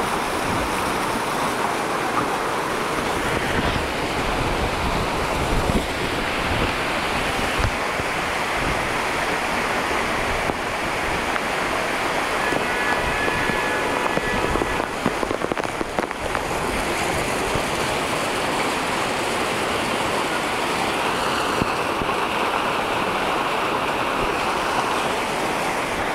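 Muddy floodwater rushing along a street in a steady, loud torrent.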